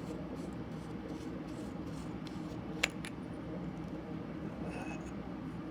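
Faint scraping and handling of a flashlight as its tail cap is unscrewed to reach the battery, with a sharp click nearly three seconds in and a fainter one just after, over a steady low hum.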